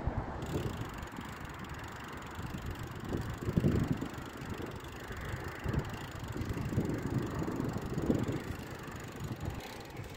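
Wind rumbling on a handheld phone's microphone while riding a bicycle, an uneven low noise that swells and eases in gusts.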